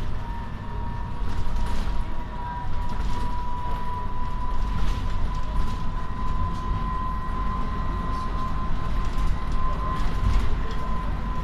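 Inside a moving city bus: a steady low rumble of the ride with a steady high whine running over it, and faint rattles and creaks from the cabin.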